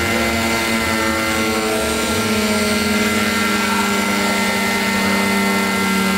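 Radio-controlled scale model Bell helicopter hovering low: a steady whine from its engine and rotor blades, rising slightly in pitch about two seconds in.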